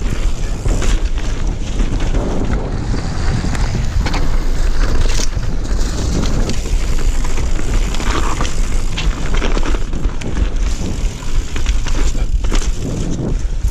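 Mountain bike ridden fast down a dirt forest trail, recorded by the onboard camera: wind rushes over the microphone while the tyres run over dirt and twigs and the bike clatters over bumps.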